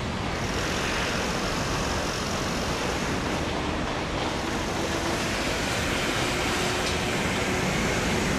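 EF65 electric locomotive hauling a freight train of tank cars at a crawl: a steady rumble and hiss, with a faint steady hum joining in about three seconds in.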